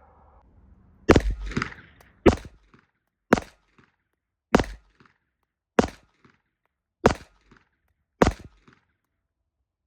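Glock 19X 9mm pistol firing seven slow, deliberate shots about a second and a quarter apart, each a sharp report with a short echo.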